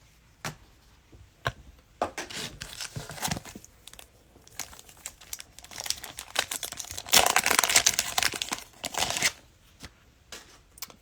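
Cellophane wrapper of a Mosaic football cello pack being torn open and crinkled by hand, with scattered crackles and a louder, longer stretch of tearing and crinkling past the middle.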